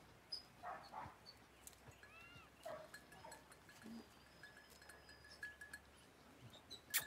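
Near silence: faint outdoor quiet with scattered soft short sounds and thin distant whistles, and a few sharp clicks near the end.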